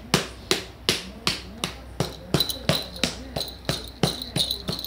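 A hand patting a hairless cat's rump with quick, even slaps, about three a second. A faint steady high tone joins about halfway through.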